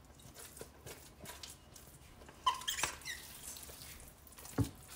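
Spatula scraping a thick chicken-and-rice casserole mixture out of an enamel mixing bowl into a baking dish, in short scrapes with a few squeaks a little past halfway. A dull knock comes near the end.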